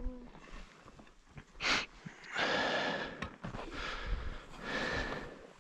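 A person breathing heavily close to the microphone: a short puff about two seconds in, then two longer, noisy breaths.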